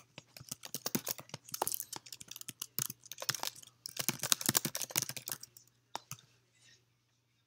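Fast typing on a computer keyboard, a dense run of key clicks that stops about five and a half seconds in, followed by two single clicks.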